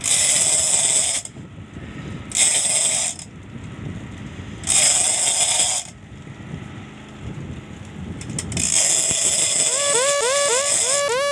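Large conventional jigging reel being wound hard in bursts, its gears whirring through each spell of cranking, as an escolar is pumped up from deep water. Near the end the winding becomes continuous, with a whine that rises with each turn of the handle.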